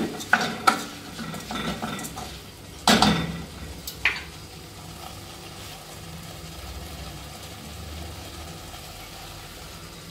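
A spoon stirring rice, chicken pieces and onion in a stainless steel pot, scraping and knocking against the metal, over a low sizzle as the rice toasts in the hot oil before any liquid goes in. The stirring stops about four seconds in, leaving only the faint steady sizzle.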